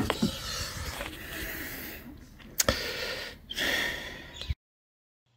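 Phone microphone handling noise: rubbing and scraping with a few sharp knocks as the phone is brought out of the fuel tank's filler hole. The sound then cuts off suddenly to dead silence near the end.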